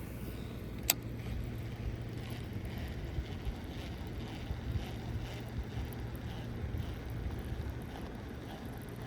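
Steady low rumble of wind on the microphone, with one sharp click about a second in and faint light ticking throughout.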